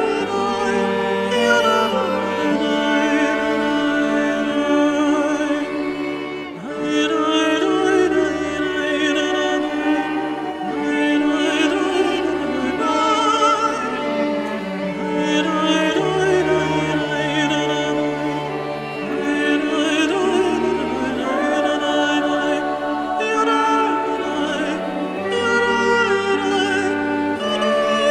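Background music: a slow piece with a singing voice holding long, wavering notes over sustained low notes.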